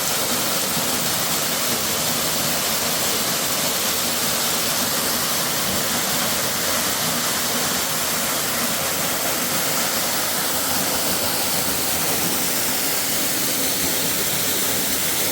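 Waterfall rushing steadily, a constant hiss of falling water.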